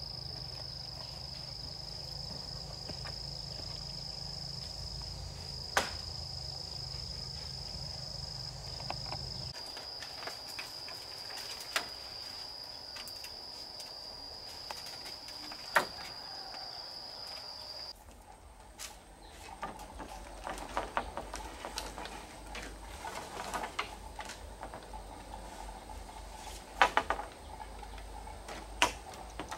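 Insects chirring, a steady high-pitched drone with a few sharp knocks over it. About two-thirds of the way through the drone cuts off, and irregular clicks, taps and knocks of handwork take over.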